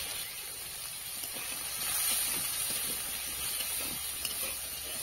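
Cubed potatoes frying in oil in a wok, a steady sizzle, with a few light scrapes of a metal spatula as they are stirred.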